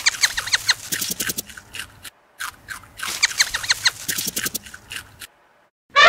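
Small bird chirping: quick high chirps in rapid succession, in two runs of about three seconds with a short silent break between them.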